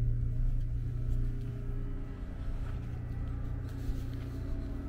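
Steady low hum of a Westerbeke 7.2 kW carburetted gasoline generator running at its constant 3,600 RPM, heard from inside the boat's cabin together with the air conditioner it is powering. The hum eases a little about a second and a half in.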